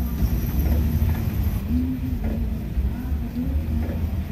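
Steady low rumble of outdoor background noise, with faint distant voices.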